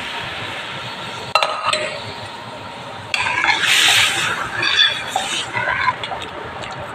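A metal ladle stirring thick rajma curry in a stainless steel pan, scraping and clinking against the pan's sides and bottom over a faint steady hiss. Two sharp clinks come about a second and a half in, and the busiest stirring falls in the second half.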